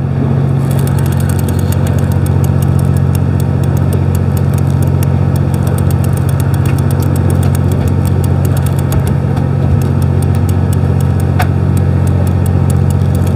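Fishing boat's engine idling with a steady low hum, and rapid light clicking over it from about a second in.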